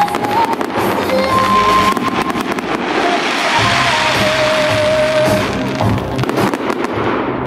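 Fireworks display: a rapid run of bangs and crackling from aerial shells bursting, with music playing throughout.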